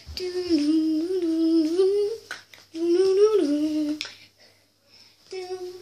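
A child humming a wordless tune in long, wavering held notes: two phrases of about two seconds each, then a short third one near the end.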